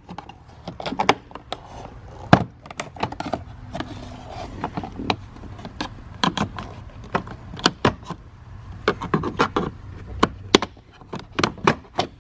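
A car's plastic interior trim panel being pried loose with a clip tool: a run of sharp clicks and knocks as the clips let go and the plastic is worked free. The loudest knock comes about two seconds in.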